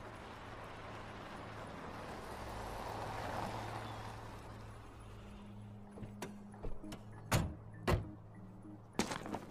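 A rushing noise swells and fades over a steady low hum. Then, from about six seconds in, come sharp footsteps, two loud steps half a second apart and then a quicker run of steps at the very end.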